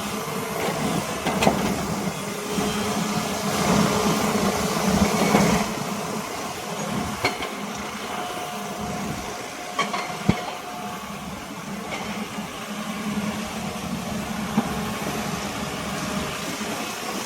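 Excavator's diesel engine running steadily, working harder for a couple of seconds about four seconds in, with several sharp knocks scattered through.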